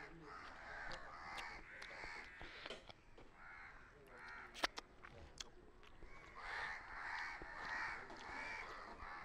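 Crows cawing repeatedly: a run of harsh caws at the start and another from about six and a half seconds in, with a few sharp clicks in between.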